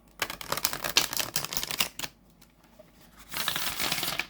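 A deck of oracle cards being shuffled: rapid clicking for about two seconds, a short pause, then a shorter rush of cards near the end.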